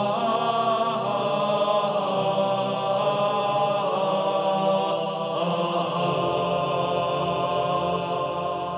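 A choir of many voices chanting long, held notes. The song begins to fade away right at the end.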